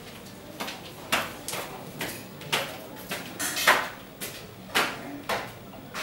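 Footsteps climbing a hard staircase: a steady series of sharp knocks, about two a second, each with a short ring.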